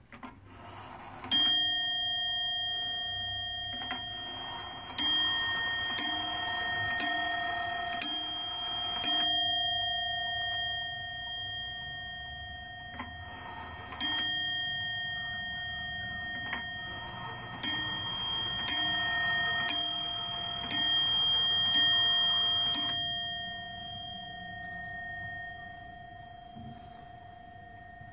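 Warmink Zaanse wall clock striking on its bell as its hands are turned forward. There is a single strike, then five strikes about a second apart, another single strike, then six strikes, each ringing on and slowly dying away, with a soft knock of the hammer under each one.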